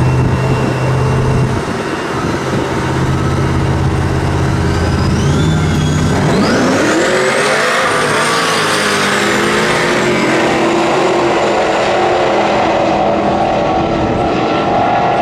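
Two Jeep Cherokee SUV engines launching side by side in a drag race. The engines run steadily at first, then about six seconds in the revs climb sharply through the gears with a high rising whine. Both keep running hard as the Jeeps pull away down the strip.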